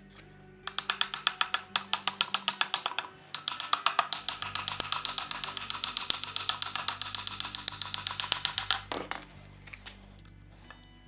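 Fast, even clicking, about nine clicks a second, over background music. It starts under a second in, pauses briefly near a third of the way through, then runs on and stops about three quarters of the way through.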